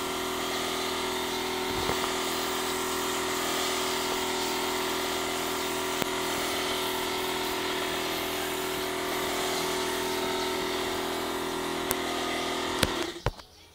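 Air compressor for a paint spray gun running steadily, a constant motor hum over a hiss. It stops suddenly near the end.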